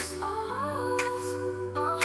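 Electronic downtempo music: held synth chords under a gliding sung vocal line, with a sharp percussion hit about once a second.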